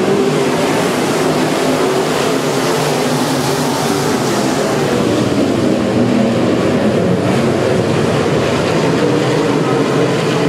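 A pack of dirt-track modified race cars racing together, their V8 engines blending into a loud, steady drone.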